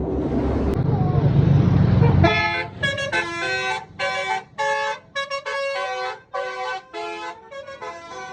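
A bus passes loudly, its noise swelling over the first two seconds, then its Basuri telolet horn plays a quick tune of short, separate multi-note honks with brief gaps between them.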